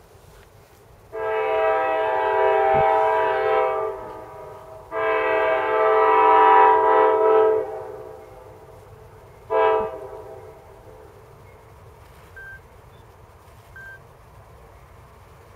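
CSX diesel locomotive's air horn sounding a chord in three blasts, two long and one short. This is the opening of the long-long-short-long signal a train sounds as it approaches a grade crossing.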